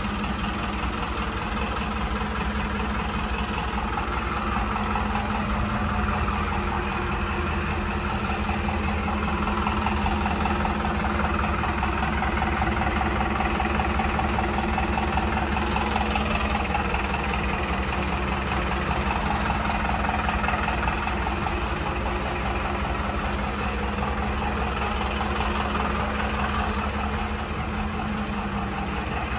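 An engine idling steadily, a constant low hum that holds the same pitch and level.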